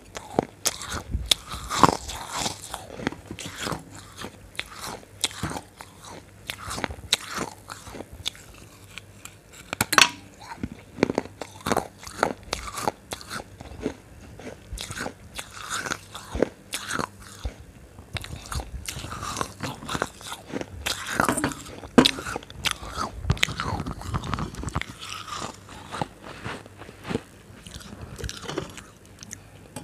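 Close-miked crunchy eating: a person biting and chewing a crisp, dry food right at a clip-on microphone, with many sharp, irregular crunches.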